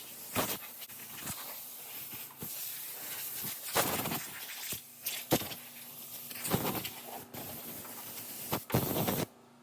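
Irregular knocks, clicks and rustling from hands handling things, which stop suddenly near the end.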